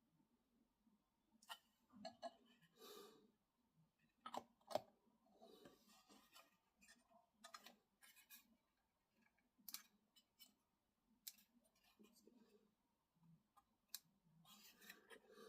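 Faint, scattered clicks, taps and brief scrapes of small plastic scale-model parts and hobby tools being handled on a workbench, the loudest a couple of sharp clicks about four and a half seconds in.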